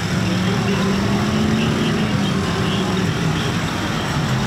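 Engine of an off-road vehicle running hard, its pitch rising a little about a second in and easing back around two and a half seconds in, over a steady rumble.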